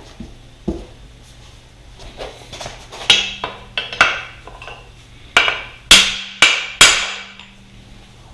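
Hammer blows on metal, trying to drive out a seized bolt on a 2002 Yamaha YZ125 chassis: a few light taps, then heavier, irregular strikes from about three seconds in, each with a short metallic ring.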